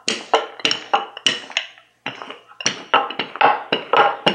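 Wooden rolling pin worked quickly back and forth over stiff, dry pizza dough on a granite countertop, giving a string of sharp wooden knocks, about three a second.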